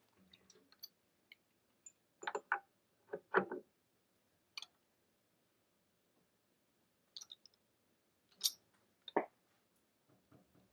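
A string of short, separate clicks and light knocks, like small hard parts being handled, with quiet gaps between. The loudest knock comes about a third of the way in.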